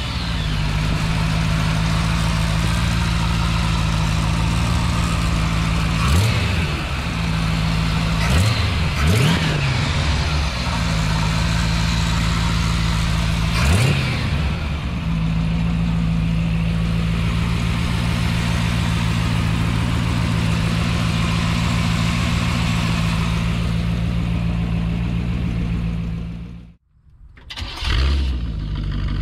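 GM 350 small-block V8 with a four-barrel carburettor idling steadily, revved four times in the first half, each rev rising quickly and falling back to idle. Near the end the sound drops out briefly and comes back with one more rev.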